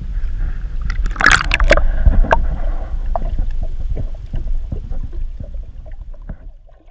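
Water and boat noise: a steady low rumble with a cluster of sharp knocks and splashy bursts about a second in, then lighter knocks, fading out near the end.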